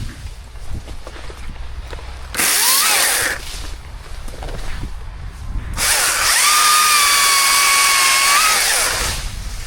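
Chainsaw revving up and cutting in two bursts: a short one about two seconds in that rises in pitch as it spins up, then a longer, steady cut of about three seconds starting around six seconds in.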